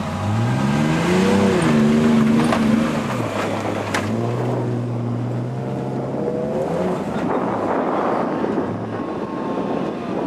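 A 4x4's engine revving hard under load on a steep sand hill climb. The revs rise over the first second or so, hold, drop about three seconds in, then climb again, followed by a rushing noise about seven seconds in.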